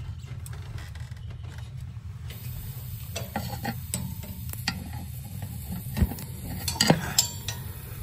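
Clicks and light metallic clinks at the pilot of a gas steam boiler as the pilot is relit by hand. A sharp knock comes about six seconds in and a quick cluster of clicks just before seven, over a steady low hum.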